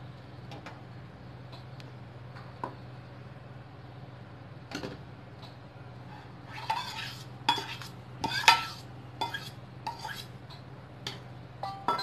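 Metal slotted spoon scraping and clinking against a steel bowl as thick cream is scooped out into a kadhai: a few scattered taps at first, then a quick run of scrapes and clinks in the second half, loudest about eight seconds in. A faint low hum runs underneath.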